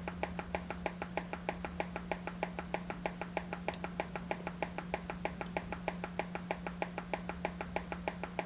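A rapid, even ticking pulse, about six or seven clicks a second, over a steady low hum, coming from a Yamaha mixer board's headphone output. The pulsating sound is the board's fault, which is being traced to a faulty transistor.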